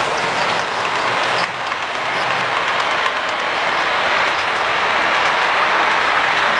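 HO scale model trains running on the layout: a steady rattling rumble of wheels on the track with faint clicks.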